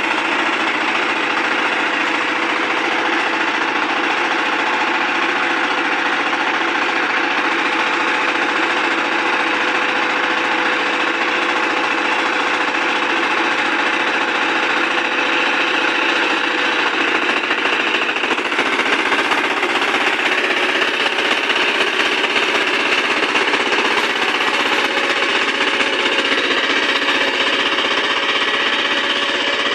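Kirloskar Mega T15 power tiller's single-cylinder diesel engine running steadily under load, with a fast rattling knock, as its rotary tiller works the soil to form bunds.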